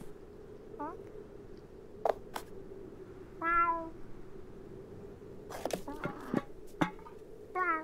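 Cartoon cat's voiced calls: a short rising chirp about a second in, a louder meow about three and a half seconds in, and another short rising chirp near the end. Light clicks and taps come between the calls.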